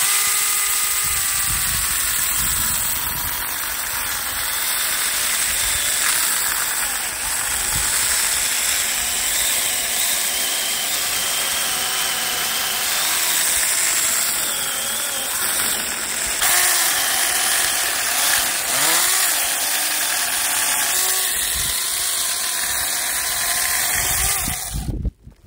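Saker battery-powered mini chainsaw cutting through a plum tree limb about 4 inches thick: a steady electric motor whine and chain rasping through the wood. It starts abruptly at full speed and runs without bogging down, an easy cut, then cuts off abruptly near the end.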